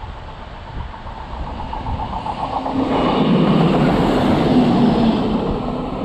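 A train passing, growing louder from about two seconds in, loudest around the middle, then easing off near the end.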